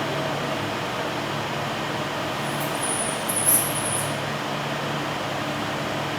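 Steady machinery hum and noise, with a brief high-pitched hiss about halfway through.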